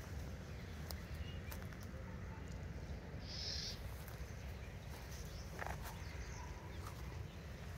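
Outdoor forest ambience in dry undergrowth: a steady low rumble, with one brief high-pitched call from a small creature about three and a half seconds in, and a faint rustle of dry brush near six seconds.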